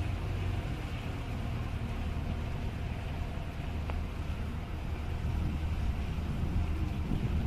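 Abra water taxi's engine running steadily while under way: a low, even hum with a steady hiss over it.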